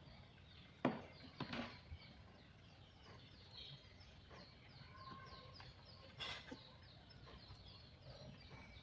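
A few sharp clicks and taps, the loudest about a second in and another near six seconds in, from handling small parts and tools while soldering components onto an IC. Faint, rapid high chirps of birds run throughout.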